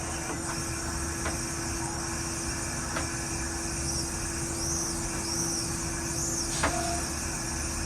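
Steady machinery hum with a constant tone, as from a tower crane's drive while it swings slowly. A few faint clicks and some faint high chirps sound over it.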